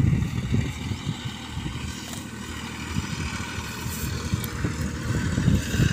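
Wind buffeting the phone's microphone: an uneven low rumble that gusts and eases throughout.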